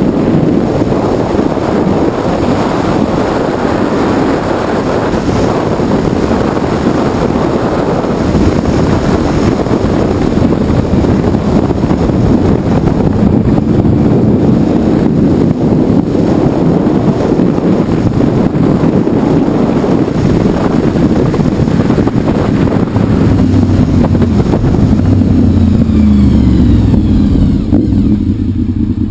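Honda VFR750 motorcycle's V4 engine running at road speed under heavy wind rush over a helmet-mounted camera. Near the end the wind noise falls away and the engine note changes as the bike slows.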